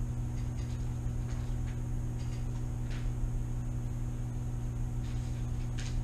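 Steady low mechanical hum, with a few faint short rustles and taps.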